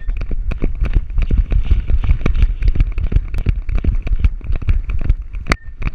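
A harness-mounted GoPro jolting with a running Weimaraner's strides: rapid, irregular knocks and rattles over a heavy low rumble of wind and handling noise on the camera.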